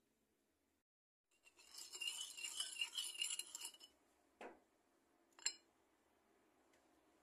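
Metal spoon stirring and scraping in a porcelain plate for about two and a half seconds, mixing oil into chermoula spice paste, then a soft knock and a single sharp ringing clink of the spoon against the plate.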